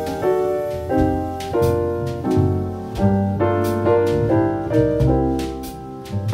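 Background music: jazz piano playing chords over a bass line.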